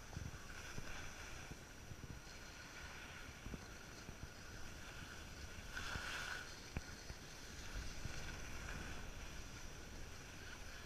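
Skis sliding and scraping over packed snow, with wind rumbling on the microphone; a louder scrape about six seconds in.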